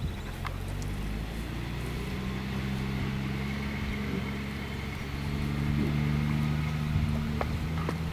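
A vehicle engine running steadily at idle, its hum swelling slightly about two-thirds of the way through.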